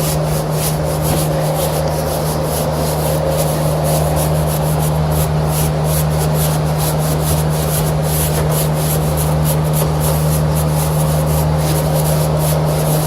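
A stiff brush scraping dry cottonwood fluff off a microchannel condenser coil in quick repeated strokes, over a steady low hum.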